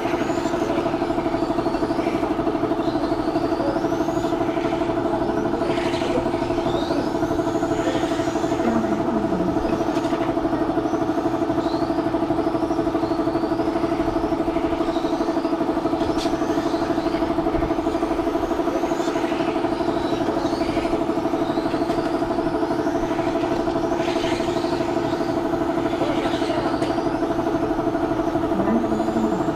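Electric RC touring cars' motors whining, pitch rising and falling over and over as they accelerate and brake around the track. Under them a steady mechanical hum of one constant pitch is the loudest sound.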